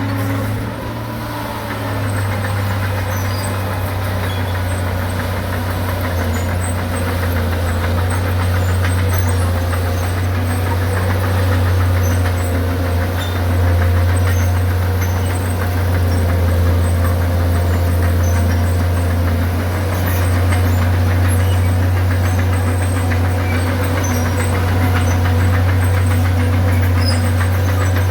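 Bulldozer's diesel engine running steadily under load with a deep hum; it eases briefly about a second in, then picks up again.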